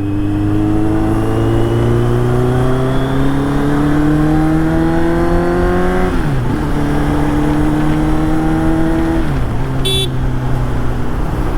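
Motorcycle engine with a dB killer fitted in its aftermarket exhaust, pulling through the gears. The engine note climbs steadily and drops at a gear change about six seconds in, climbs again, and drops at another shift near the end. A brief high chirp sounds about ten seconds in.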